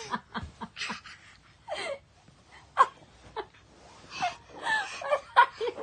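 A toddler's short, high-pitched vocal sounds, squeals and breathy huffs, coming in quick bursts.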